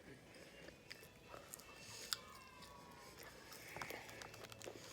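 A person chewing and biting into a fast-food meal: faint mouth sounds with small crunches and clicks, and one sharper click a little after two seconds in.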